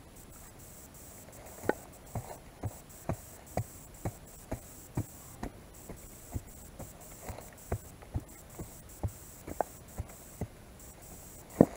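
Small hammer striking the soil and sod at the foot of an old gravestone: a steady run of dull knocks about two a second, starting a couple of seconds in, with the loudest near the end.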